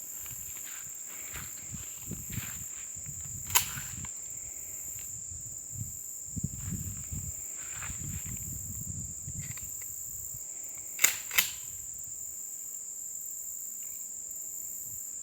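Steady high chirring of crickets, with a sharp click about three and a half seconds in and two quick clicks about eleven seconds in, then a Mossberg shotgun blast right at the end, the loudest sound.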